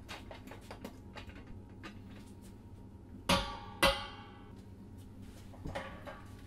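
Steel beer keg clanking twice against metal, about half a second apart, as it is tipped back onto a sack truck; each knock rings briefly. Lighter knocks and rattles come before and near the end.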